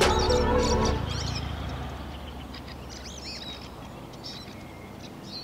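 Background music ending about a second in and fading away, followed by a few scattered bird chirps over a faint outdoor background.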